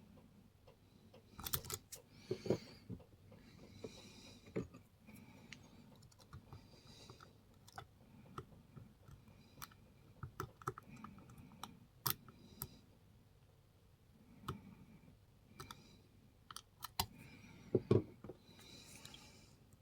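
Metal lock pick and tension wrench working the pins of a six-pin challenge lock: irregular small clicks and short scrapes as the pick lifts and probes the pins, with a few sharper clicks about 2, 12 and 18 seconds in.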